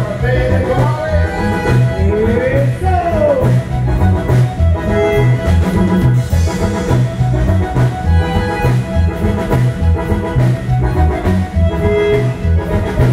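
Latin dance band playing a son, with fiddle lines over a steady bass beat.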